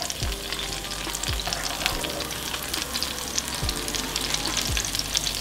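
Corn tortilla coated in red chile sauce frying in vegetable oil over medium heat in a nonstick skillet: a steady sizzle full of small crackling pops. A slotted spatula moves and lifts the tortilla in the pan.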